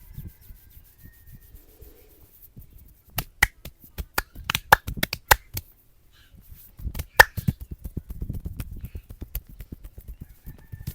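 Percussive hand strokes of a traditional head massage: quick, irregular runs of sharp slaps and claps on the head, starting about three seconds in, the loudest strike just past the middle, then a run of softer, denser patting.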